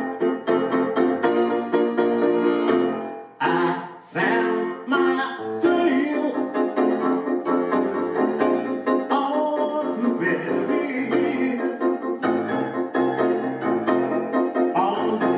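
Instrumental music led by keyboard chords over a bass line, starting abruptly from silence, with a brief drop in level around three seconds in: the instrumental intro of a song's backing track.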